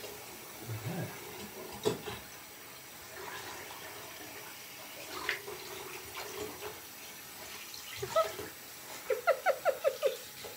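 Water trickling and lightly splashing in a bathroom sink while a Labrador puppy is bathed, with a few faint knocks. Near the end comes a quick run of about eight short squeaks, the loudest sound here.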